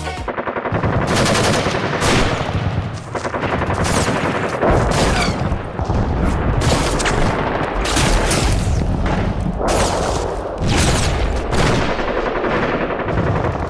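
Video-game gunfire: dense volleys of shots, some in rapid machine-gun bursts, over a heavy low rumble.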